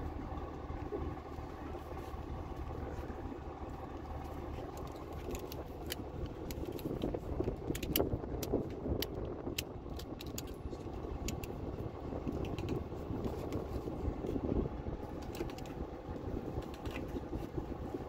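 Ratchet tie-down straps being worked by hand to cinch loaded produce bins onto a flatbed trailer: the ratchet buckles click and the webbing and metal hardware clatter, mostly in the second half. A steady low hum runs underneath.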